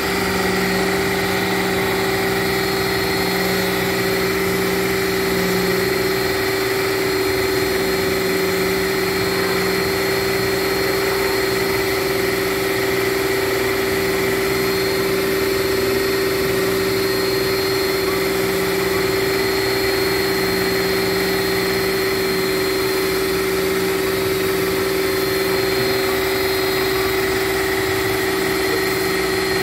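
A motor running steadily at one unchanging pitch: a strong hum with a fainter high whine above it.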